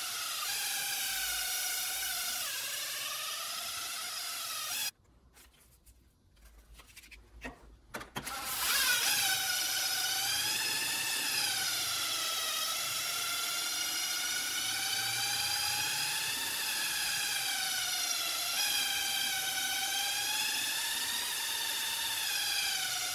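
Power tool motor whining steadily, its pitch slowly rising and falling as the load changes. It drops away about five seconds in, with a few clicks, and starts up again about three seconds later.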